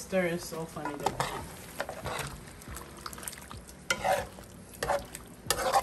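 Metal spoon stirring chunks of stewed pork in a metal pot, with irregular scrapes and clicks against the pot and a few louder scrapes near the end. The pot sizzles lightly underneath as the meat and gravy cook.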